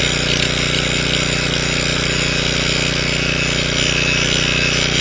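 Arc welder crackling and hissing steadily while welding steel sheeting onto a sea-wall I-beam anchor, over the steady hum of a running engine.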